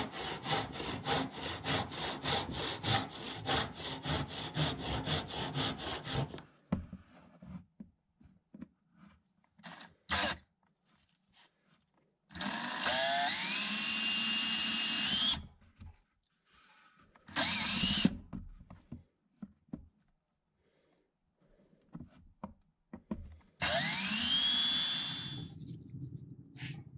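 A hand saw cutting through a pine block in quick, even back-and-forth strokes, stopping about a quarter of the way in. Then a cordless drill spins up and bores into a plastic container in three runs, the longest two with a rising whine, with small handling knocks between them.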